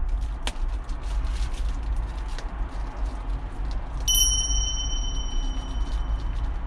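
Thin plastic wrapping crinkling and rustling as fingers pick at its tied knot, which won't come undone. About four seconds in comes a bright, ringing ding that slowly fades.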